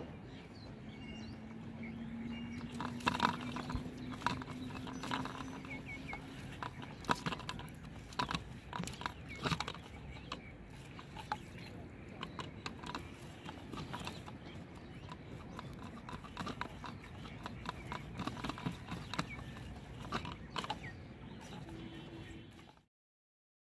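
Outdoor ambience by a pond, with scattered sharp clicks and taps and a few faint chirps. A low steady hum rises slowly in pitch over the first several seconds. The sound cuts off abruptly just before the end.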